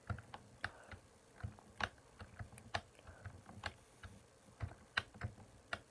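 Keys of a Nos-k200 gaming keyboard being pressed: sharp, unevenly spaced key clicks, a little over two a second.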